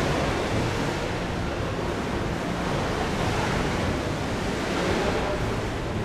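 Wave-pool water sloshing and splashing in big artificial waves, a steady wash of water noise.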